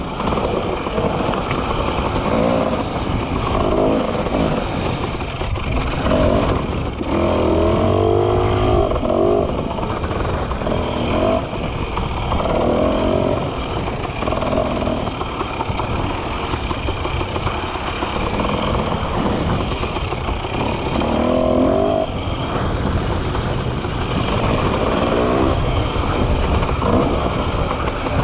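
A motor vehicle running steadily, its engine pitch rising and falling now and then.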